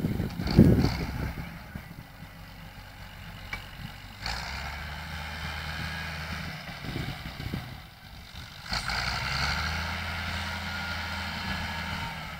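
Landini 12500 tractor's Perkins diesel engine running as the tractor lifts and turns over its Balzani two-furrow reversible plough. The engine note rises about four seconds in, drops briefly near eight seconds and comes up again a second later. A short loud blast of noise comes about half a second in.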